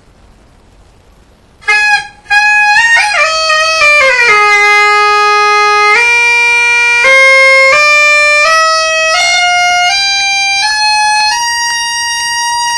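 Highland bagpipe chanter with a soft reed, played alone without drones, checked to see that it gives all its notes. A short blast comes about two seconds in, then one loud, reedy tone steps down the scale to its lowest note and climbs back up note by note to the top before cutting off.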